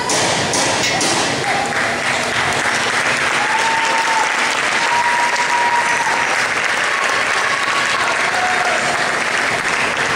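Crowd of spectators applauding steadily, with a few voices calling out over the clapping, as a round of an amateur boxing bout ends.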